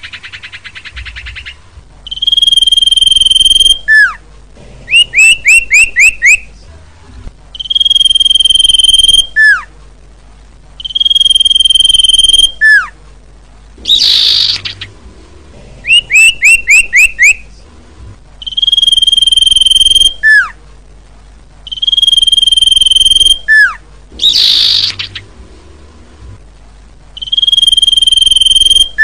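Common iora singing in a repeated loop. Long, steady, high whistles each end in a quick downward note, and they alternate with quick runs of short rising chirps. A rough, harsh note comes twice.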